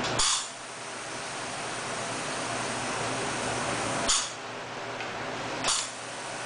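Valve-seat cutting machine running with a steady hiss. Three short, sharp bursts of higher hiss cut in: one right at the start, one about four seconds in and one near six seconds, as the cutter spindle is brought down onto a valve seat of a cast-iron Ford 460 cylinder head.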